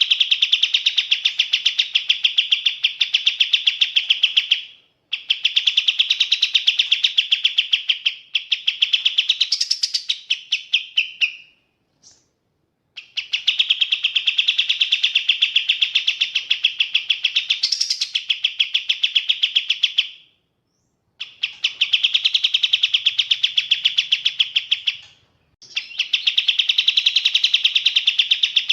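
Kapas tembak songbird singing a clear, rapid string of repeated notes in long runs of several seconds each, separated by short pauses, with a brief rising flourish twice.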